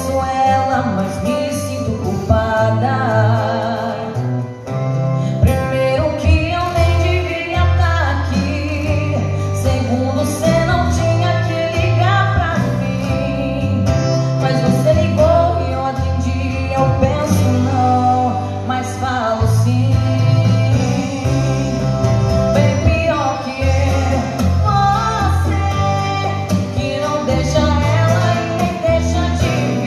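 A woman singing a sertanejo song into a microphone, accompanied by strummed acoustic guitar and amplified through PA speakers. The melody runs on without a break, with sliding notes over a steady low guitar accompaniment.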